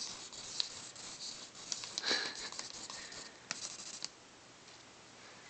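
Pen writing on a wrapped gift's paper: short scratchy strokes, strongest about two seconds in, that stop after about four seconds.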